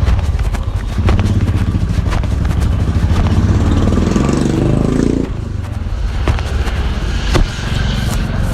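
A motor vehicle engine, likely a motorcycle, running loud and close, its pitch rising as it speeds up before it drops away about five seconds in, leaving lower street traffic noise with scattered clicks.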